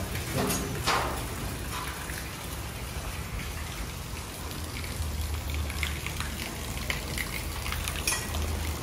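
Steady rain falling, heard as an even hiss with scattered faint ticks, and a low hum underneath that grows louder from about five seconds in.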